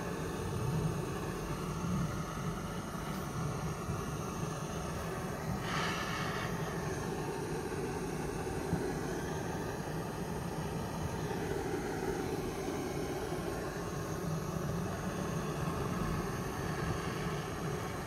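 Butane torch burning with a steady hiss as its jet flame plays on a pomegranate, with a brief sharper burst of hiss about six seconds in.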